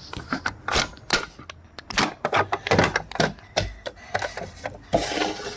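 Plastic fire alarm pull station being pulled and handled: an irregular series of sharp clicks and knocks from its lever and housing, with no alarm tone sounding.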